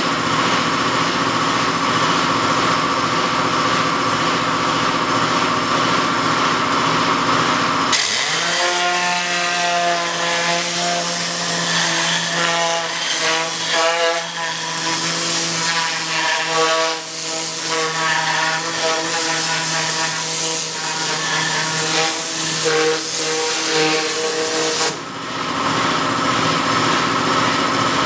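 Air compressor running steadily. About eight seconds in, the Tornador air-powered cleaning gun cuts in abruptly with a loud hiss of compressed air spraying water and cleaner over the motor's hum, and it cuts off just as suddenly a few seconds before the end.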